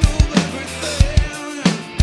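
Acoustic drum kit played in a driving rock beat, with bass drum and snare hits and cymbals. The hits land over a rock backing track that has a bass line and pitched guitar or vocal lines.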